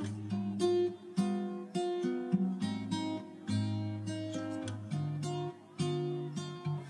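Background music played on acoustic guitar: a steady run of plucked notes and strummed chords.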